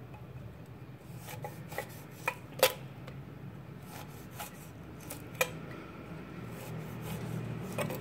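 Kitchen knife cutting a lime into wedges over a clay mortar, with a handful of separate sharp clicks and knocks from knife and lime pieces against the clay, the loudest about two and a half seconds in. A low steady hum runs underneath.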